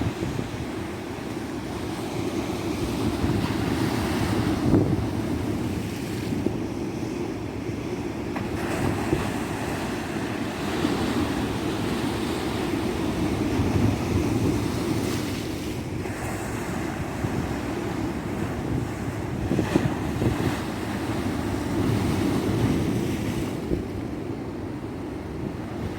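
Ocean surf breaking on a beach, a continuous wash that swells and eases every few seconds, with wind buffeting the microphone.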